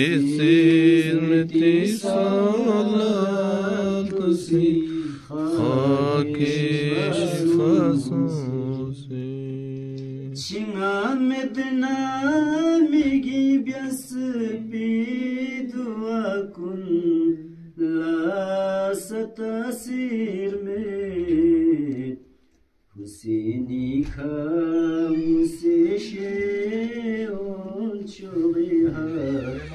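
Unaccompanied devotional chanting: a melodic recitation in long, drawn-out, wavering lines, with short breath pauses and one brief full stop about 22 seconds in.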